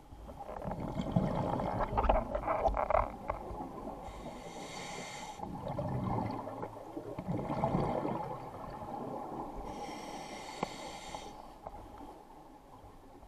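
Scuba diver breathing through a regulator underwater: exhaled bubbles rumble out, an inhale hisses through the regulator about four seconds in, more bubbles follow, and a second hissing inhale comes near ten seconds.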